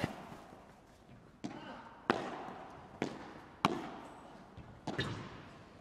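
Padel ball being struck by solid paddles and rebounding off the court and glass walls during a rally: about six sharp knocks at irregular intervals, each with a short echo.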